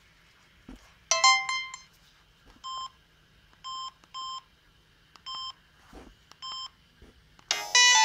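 Samsung SGH-C520 clamshell phone: a short run of quick electronic notes about a second in, then five short identical keypad beeps as its menu buttons are pressed. Near the end a loud polyphonic Yamaha SMAF ringtone starts playing.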